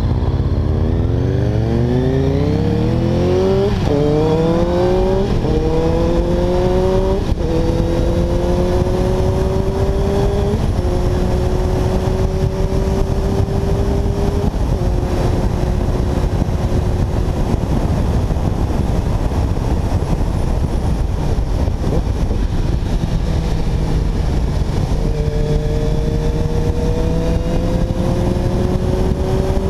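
Triumph Speed Four's 600 cc inline-four engine accelerating hard through the gears: the pitch climbs and drops back at three upshifts in the first eleven seconds, then holds at a steady cruise, and near the end it climbs again. Heavy wind rumble on the microphone runs under it throughout.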